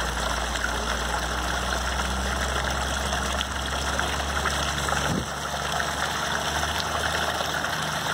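Steady rush of hot spring water with a low mechanical hum underneath; the deepest part of the hum drops away about five seconds in.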